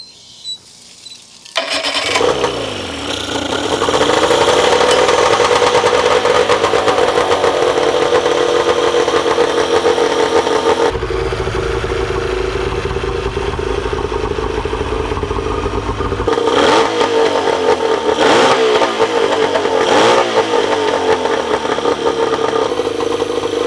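A Tohatsu 25 hp two-stroke outboard starts about one and a half seconds in, revs up, and settles into steady running, now firing and running well after a carburetor cleaning. Near the end the engine speed changes briefly a few times.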